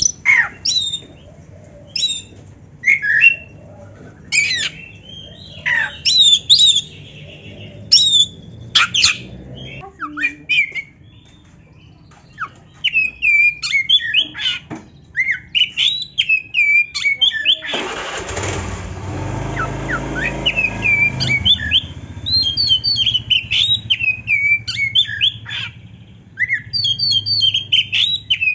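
Oriental magpie-robin (black-breasted kacer) singing: loud, sharp whistled notes and chirps, spaced apart at first, then after a short pause a fast, nearly unbroken run of varied whistles and chirps. About two-thirds of the way through, the noise of a passing motor vehicle swells over the song for a few seconds.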